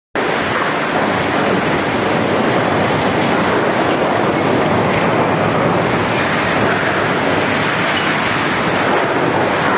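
Heavy rain pouring down in a strong wind gusting through trees: a loud, steady rushing.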